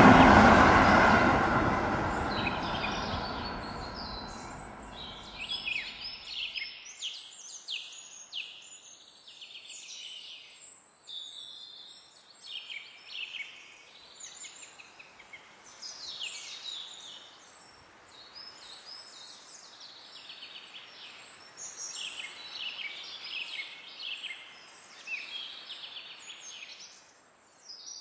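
A passing vehicle's rumble fading away over the first six seconds or so, then many small birds chirping in short, repeated calls.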